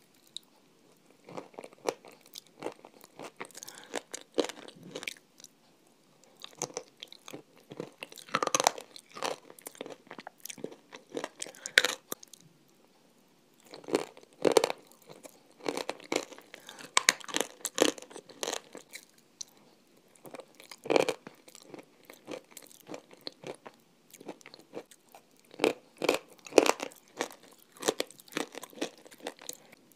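Close-miked crunchy eating: hard frozen chocolate ice cream bitten and chewed off a metal spoon, in irregular clusters of crisp crackles with short pauses between mouthfuls.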